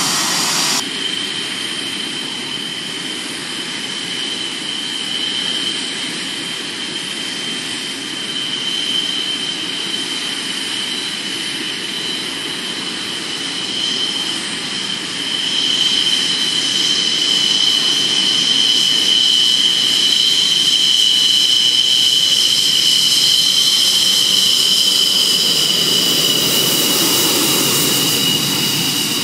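Taxiing MiG-29 fighter's twin jet engines at low power: a steady high turbine whine over a low rumble, getting louder about halfway through.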